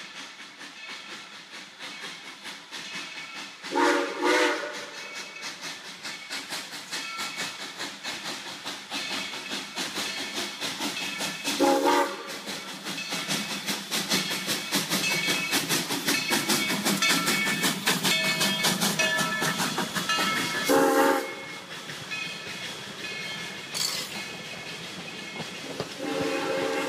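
Steam locomotive hauling passenger coaches past at speed. Its steam whistle sounds two quick blasts a few seconds in, then three single blasts spaced several seconds apart, the last near the end. Between the blasts the rapid chuffing of its exhaust and the clicking of wheels on rail jointss grow louder as it nears and passes, then give way to the coaches' wheels clicking by.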